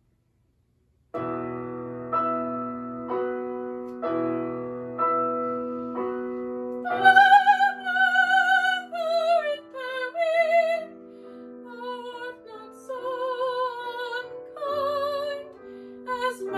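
A classical art song: after a brief silence, a piano plays an introduction of repeated chords about once a second, then a woman's trained soprano voice comes in about seven seconds in, singing with wide vibrato over the piano accompaniment.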